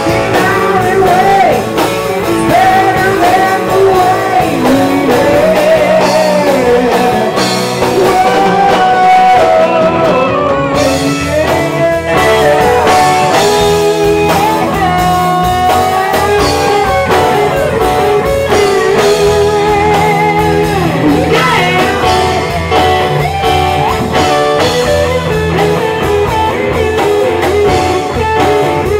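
Live rock band playing a bluesy rock song at full volume: electric guitar lead over bass and drums, with singing.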